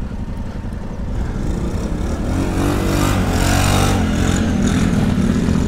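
Adventure motorcycle engine running on a dirt track, picking up revs and getting louder from about two seconds in, with wind rush over the microphone.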